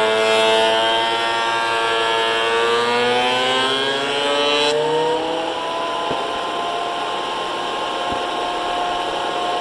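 Harbor Freight benchtop thickness planer planing an oak board: the motor whines at a lowered pitch under the load of the cut, with harsh cutting noise. About halfway through, the cut ends abruptly and the motor speeds back up to a higher, steady whine, running free with no wood in it.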